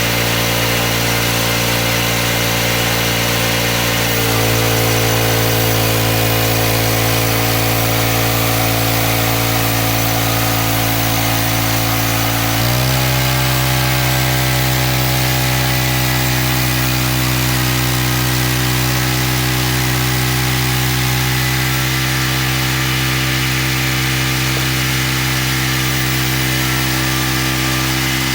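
Homemade band sawmill's engine running steadily, its pitch stepping up a little about four seconds in and again about thirteen seconds in, then holding.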